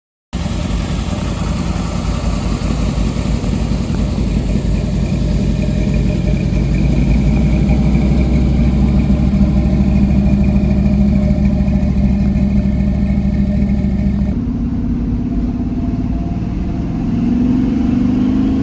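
Rat rod car's engine running steadily. Its sound changes suddenly about fourteen seconds in, and near the end it rises in pitch as the engine revs up.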